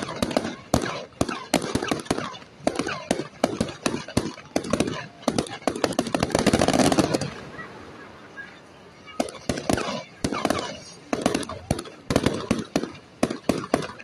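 Fireworks display: rapid bangs and crackles of bursting aerial shells. They thicken into a loud, dense stretch about halfway through, ease off briefly, then resume in quick succession.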